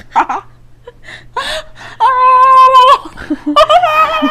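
A person making silly vocal noises: short breathy squeaks, then two long, high-pitched, whining held notes about two seconds in and near the end.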